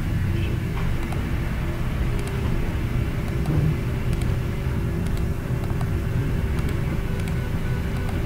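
Steady low rumbling hum of background noise with a faint steady tone in it, and a few faint clicks scattered through, such as from a computer mouse.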